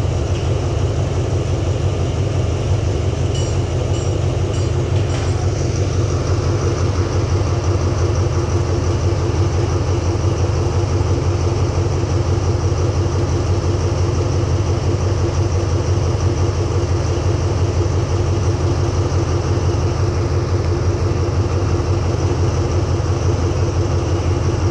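Diesel locomotive engine idling at a standstill: a steady low drone with a constant hum above it.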